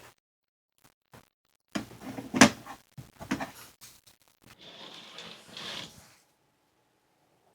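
Household objects being handled: a run of knocks and clatters, the loudest about two and a half seconds in, then a short soft rustle.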